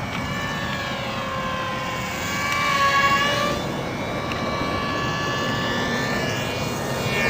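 Small electric R/C airplane's motors and propellers whining as it flies past. It is loudest about three seconds in, and its pitch slides down as it passes.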